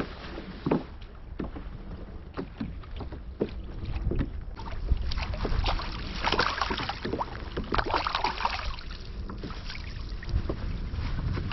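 Water splashing and sloshing against a kayak, with short knocks and a steady low wind rumble on the microphone. Louder surges of splashing come about halfway through and again a couple of seconds later.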